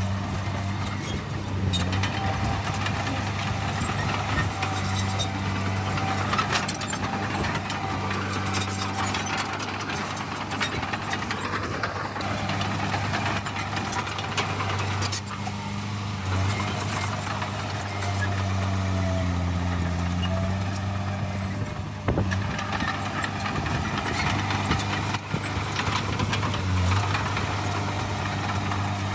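Heavy diesel engine of earthmoving machinery running steadily, with occasional sharp clanks.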